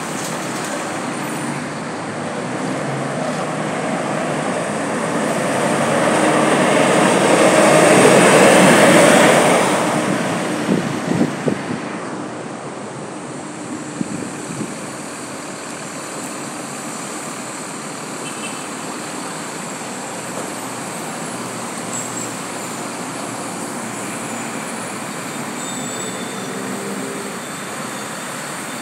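City road traffic with buses: a heavy vehicle passes close, growing louder to its loudest about eight seconds in and fading by about twelve seconds, with a few short knocks just after. Otherwise a steady traffic hum.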